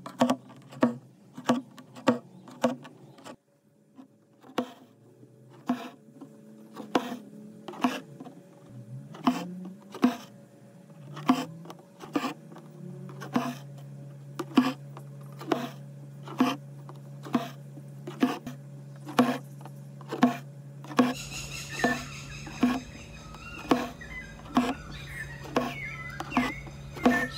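An embroidery needle pops through canvas stretched tight in a wooden hoop, with the thread rasping through after it, in an even run of sharp taps about twice a second. Faint steady low tones lie underneath.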